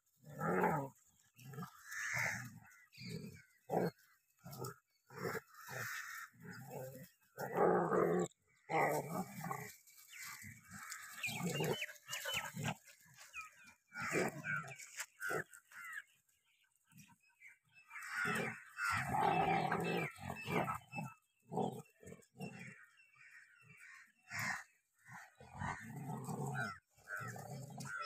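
Dogs growling in repeated short bursts as they tug and wrestle over a cloth, a Rottweiler and a German shepherd pulling on either end.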